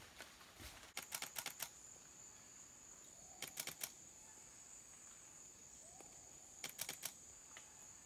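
Camera shutter firing in three quick bursts of four or five clicks each, over a steady high-pitched insect drone.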